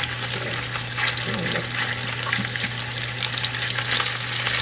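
Chicken pieces sizzling in hot olive oil in a non-stick frying pan while they brown, with a dense crackle of small, quick fat pops. A steady low hum runs underneath.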